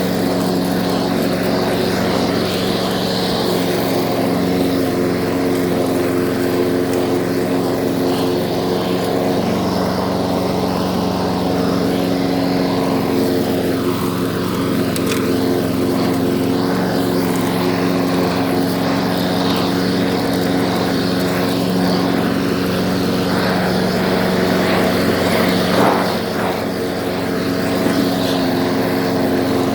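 Small lawn mower engine running steadily at a constant speed, with a brief swell and dip in its sound near the end.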